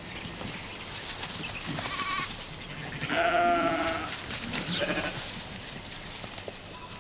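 Gotland sheep bleating, one long wavering bleat about three seconds in and a few shorter calls around it, over a rustling background.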